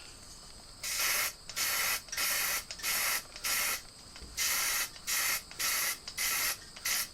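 Aerosol can of Rust-Oleum dark bronze metallic spray paint spraying in about ten short hissing bursts, each about half a second long, as a light-fixture base is coated.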